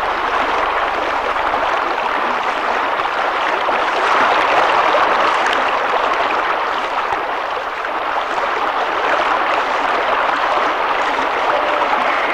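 Fast mountain river rushing through rocky rapids: a steady wash of white water.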